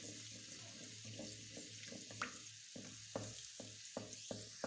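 Ginger-garlic paste sizzling faintly in hot oil in an earthenware handi, with a wooden spoon scraping and tapping against the clay pot as it is stirred. The taps come quicker in the second half.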